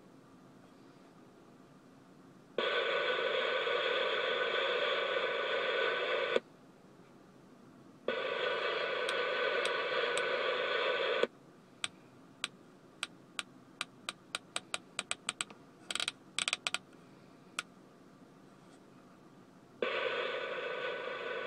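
Cobra 19 Ultra III CB radio's speaker hissing with static in bursts of a few seconds, each opening or cutting off abruptly with a click, with a run of about a dozen quick sharp clicks between the second and third bursts.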